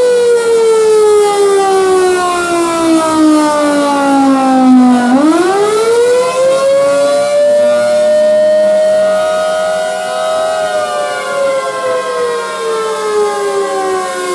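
Backyard outdoor warning sirens, including a Thunderbolt 1000, a Federal Signal 2001-130 and a Model 2T, sounding a wail together as a tornado warning alert. Several siren tones wind down, climb sharply about five seconds in, hold high for a few seconds, then wind down again near the end. The 2001-130 sounds without rotating, because a fence has jammed its rotator.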